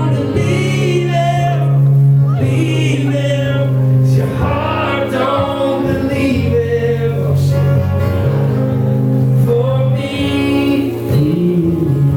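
Live music: a male singer-songwriter singing with acoustic guitar accompaniment, recorded from the audience.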